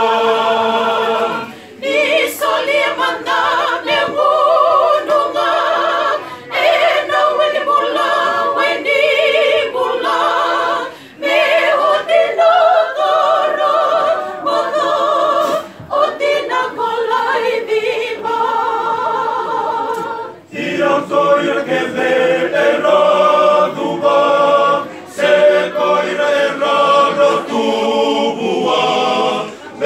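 Mixed church choir of men and women singing a hymn unaccompanied in parts, in long phrases with short breaks between them.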